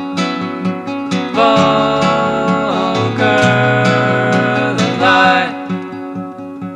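Background music: a song with a steady plucked guitar pulse and long held melody notes that slide down at their ends, thinning out after about five and a half seconds.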